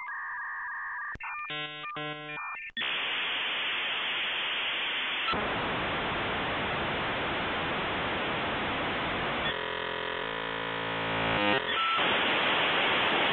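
Edited-in telephone sound effect: a few electronic beeps and dial tones, then a loud steady hiss of static. A buzzy tone sounds over the static for a couple of seconds about ten seconds in.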